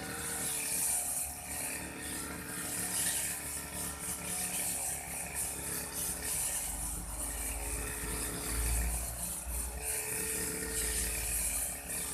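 Old Aldo brush cutter's small two-stroke engine running steadily while cutting grass, with a low rumble for a few seconds past the middle.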